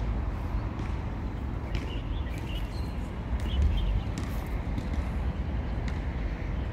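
Steady low rumble of distant city traffic, with a few faint bird chirps about two to three and a half seconds in.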